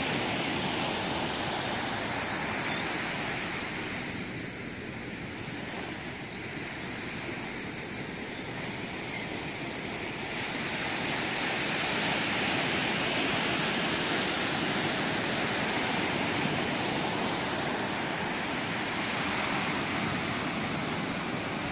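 Ocean surf washing on the beach, a steady rushing noise that eases off a few seconds in and swells back up about halfway through.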